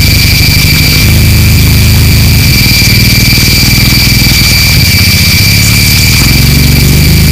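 Harsh noise music: a loud, unbroken wall of distorted, fast-pulsing low buzz like an engine, with two steady high whines and hiss over it.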